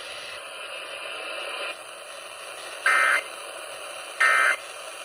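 NOAA Weather Radio broadcast carrying steady hiss, then two short bursts of warbling SAME digital data tones about a second and a half apart: the EAS end-of-message code that closes the flash flood warning.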